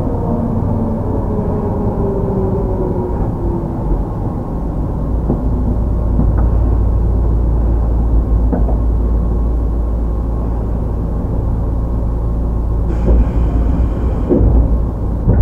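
Inside a Tobu 10030-series field-chopper commuter train car: motor and gear whine sliding down in pitch over the first few seconds as the train slows, over a steady low rumble of wheels on rail. A few short knocks come through, with the loudest near the end.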